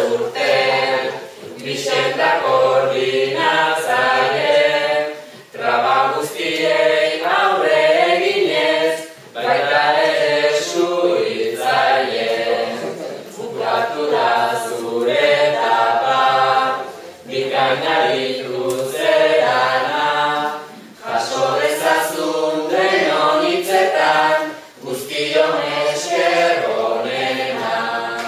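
A group of voices singing unaccompanied, in phrases of about four seconds with short breaks between.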